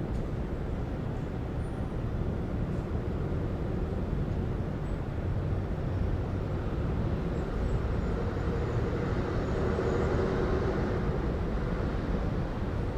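City ambience: a steady low rumble of distant traffic, with one vehicle passing closer, swelling and fading away about eight to eleven seconds in.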